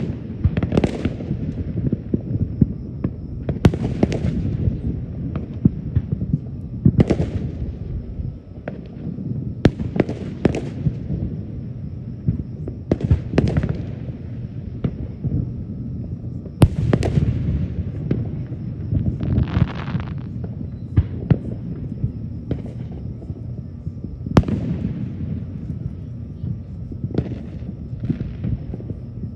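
Aerial firework shells launching and bursting in a public display: sharp booms and bangs at irregular intervals, about a dozen loud ones, over a continuous low rumble.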